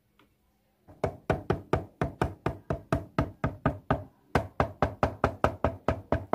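A plastic fashion doll's feet tapped quickly on toy dollhouse stairs and floor to make footsteps: a fast, even run of knocks, about four or five a second, starting about a second in, with a short break about four seconds in.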